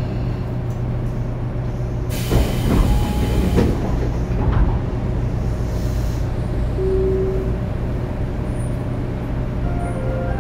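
Tobu 9000 series electric train heard from inside the car while running: a steady low hum of motors and wheels on the rails. About two seconds in, a loud hissing rush swells over it for about a second and a half.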